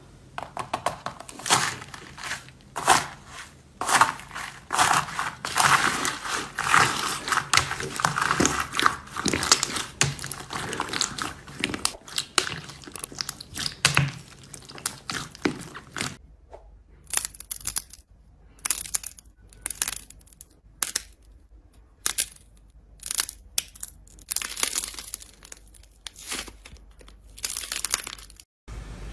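Slime being squeezed and pressed by hand, giving a dense run of crackling and popping clicks. About halfway through it changes to separate, sharper and higher-pitched crackles with short pauses between them.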